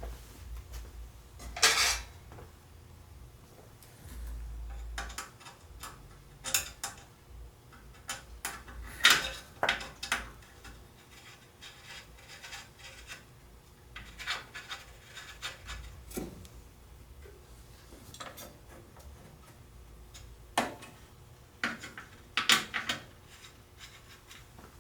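Scattered clinks, taps and short scrapes of metal parts being handled as a Shopsmith bandsaw fence is set and locked down, with a brief low hum about four seconds in.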